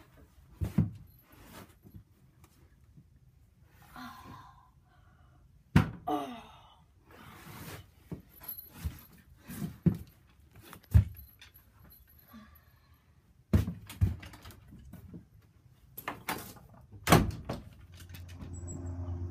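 Scattered thumps and knocks of someone moving about and bumping things in a small wooden shed, with brief rustling between them. Near the end the wooden shed door thuds open, and a low steady hum comes up just after.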